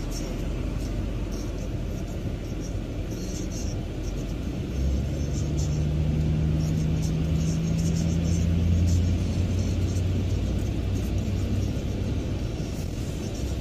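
Road and engine noise heard from inside a moving car at speed: a steady tyre rumble, with a low engine drone that swells about five seconds in and eases off again after about nine seconds.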